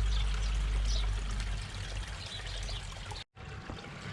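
Water pouring and trickling steadily into a garden pond, with a low rumble through the first couple of seconds. The sound drops out for a moment about three seconds in.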